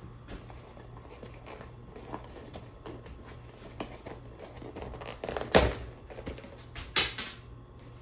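Tools and parts being handled on a workbench: scattered light clicks and taps, then two sharper knocks, about five and a half and seven seconds in, the second ringing briefly like struck metal.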